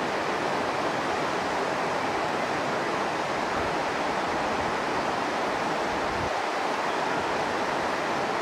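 Steady rush of a shallow, rocky river running over stones and small rapids.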